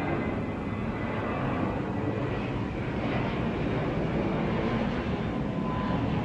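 Twin-engine jet airliner flying overhead, its engines making a steady noise.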